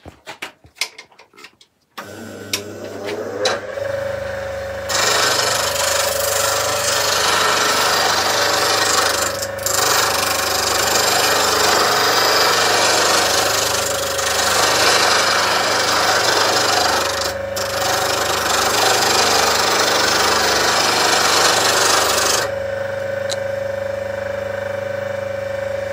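Axminster Trade slow-speed bench grinder switched on, its motor spinning up to a steady hum about two seconds in. From about five seconds a roughing gouge held in a jig is ground on the wheel: a loud, even grinding noise with two brief breaks. It stops a few seconds before the end, leaving the grinder running alone.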